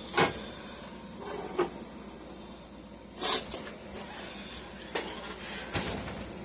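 Kitchen handling noises: a few sharp knocks and clatters, with a brief hissing burst about three seconds in.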